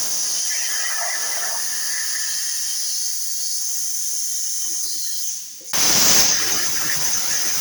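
CNC plasma cutter torch hissing steadily. About five and a half seconds in, the hiss briefly dips, then comes back abruptly louder and fuller.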